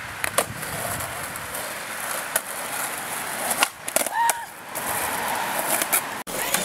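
Skateboard wheels rolling on rough asphalt, broken by several sharp clacks of the board's tail popping and the board landing.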